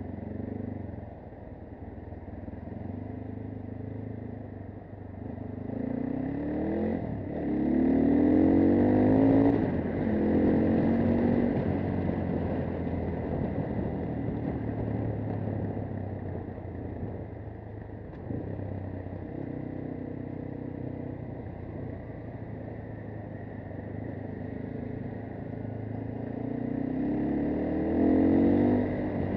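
AKT TT 250 Adventour's single-cylinder four-stroke engine running as the motorcycle rides through traffic. It revs up, rising in pitch in two steps about six to ten seconds in, then settles to a steady cruise, and revs up again near the end.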